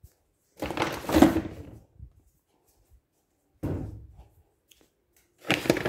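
Knocks and clatter from things being handled on a front-loading washing machine, in three separate bursts: about a second in, a little past halfway, and near the end.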